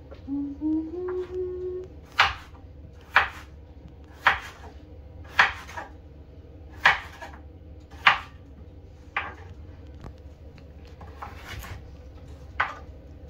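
Kitchen knife chopping raw potatoes into wedges on a wooden cutting board: a sharp knock about once a second, each stroke going through to the board.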